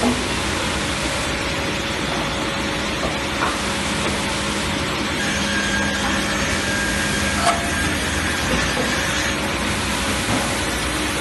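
MJ141 multi-saw edger running with a steady machine noise, a faint hum, and a few light knocks; a higher tone comes in for a few seconds in the middle.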